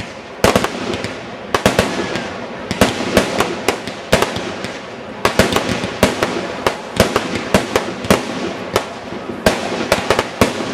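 Aerial fireworks going off: a rapid, irregular string of sharp bangs and crackles from bursting shells, several a second at times.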